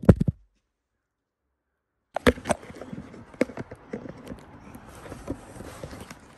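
Irregular knocks, clicks and rustles from a handheld phone being moved about, with a dead gap of total silence for under two seconds near the start.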